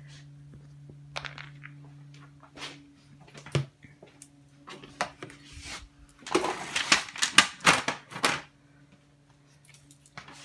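A small dog's claws clicking and scrabbling on a tile floor as it moves about, with scattered ticks and then a dense, louder run of scrabbling about six to eight seconds in.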